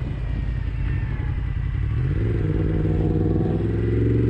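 Yamaha MT-10 motorcycle engine running while riding, under a rough rush of wind on the microphone. About two seconds in the wind eases and a steady engine note comes through clearly.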